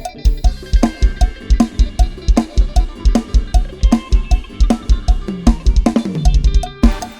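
Isan lam sing dance music in the lai hae groove: a drum kit plays a fast, driving beat of bass drum, snare and cymbals over a pitched melody line. A low note slides downward near the end.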